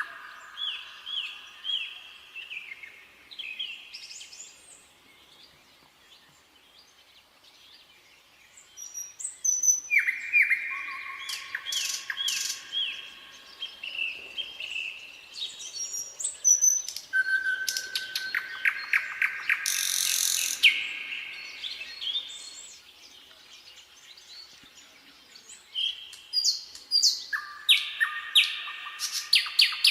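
Nightingale singing: phrases of quickly repeated notes and trills, with a pause of a few seconds before the song starts up again about ten seconds in and a shorter lull near the end.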